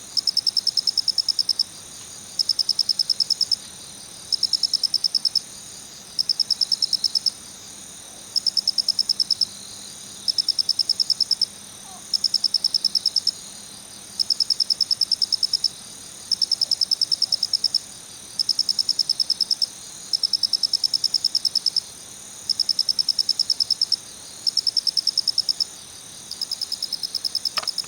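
Male black shiny cricket (kurotsuya-koorogi) calling with a high-pitched 'kichi-kichi' chirp: trains of rapid pulses, each about a second long, repeated about every two seconds.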